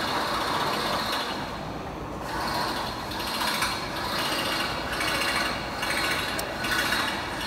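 A machine's rotary turntable being worked by hand on its threaded steel column to set its height: continuous metallic scraping and clicking of the mechanism, wavering in loudness.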